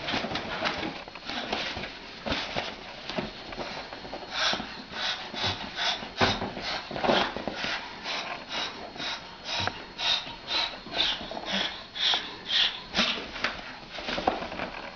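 Moluccan cockatoo giving short breathy hisses over and over, about two a second, in a threat display at a kitten.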